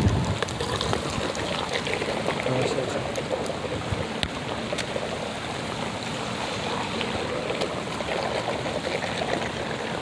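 Steady rushing of running water from a plaza water feature.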